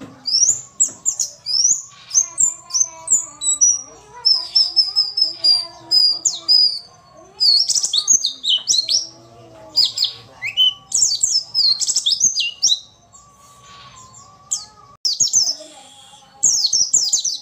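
White-eye (pleci, Zosterops) singing: rapid, high twittering phrases made of short gliding chirps strung close together. The phrases come in runs, with a quieter pause a little after the middle before the twittering resumes.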